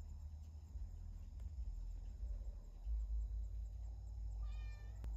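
Outdoor rural ambience: a low steady rumble, with one short high-pitched animal call about four and a half seconds in.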